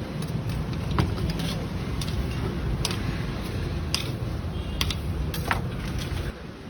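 A steady low rumble with scattered sharp metallic clicks and clinks, the rumble dropping away near the end.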